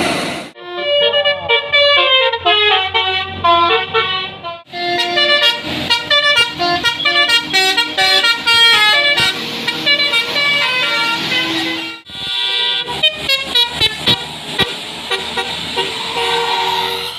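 Multi-tone musical air horns of tour buses, 'telolet' horns, playing quick stepwise tunes of several notes at once. They come in three spells, with short breaks about four and a half and twelve seconds in.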